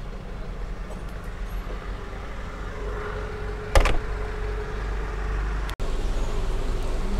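Steady low street noise with a faint engine-like hum. One sharp knock comes about four seconds in, and the sound cuts out for an instant shortly after.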